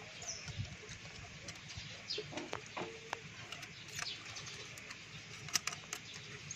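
Light metal clicks of a feeler gauge and hand tool against the valve rocker arms of a Mitsubishi 4G13 engine during valve clearance adjustment, with a few sharper clicks about five and a half seconds in. Birds chirp faintly in the background.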